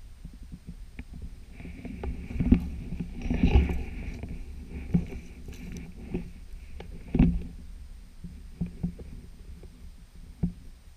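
A person walking through dry gorse and bracken: brush rustling and scraping against clothing and microphone over a low rumble, from about two seconds in to about seven, with a handful of heavy thumps, the loudest about two and a half and seven seconds in.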